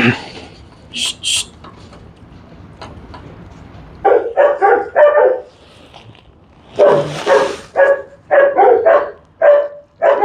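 Dogs barking in quick runs of short barks, starting about four seconds in and going on to the end, with one harsher, noisier bark near the middle. Two light clicks come about a second in.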